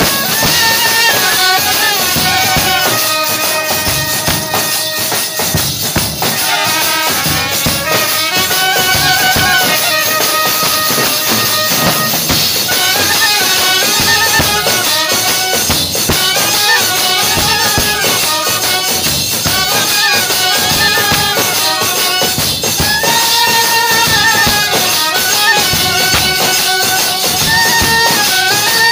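Assamese band party playing live: clarinet and trumpets carry an ornamented melody over a drum kit, with a constant jingling cymbal and percussion rhythm.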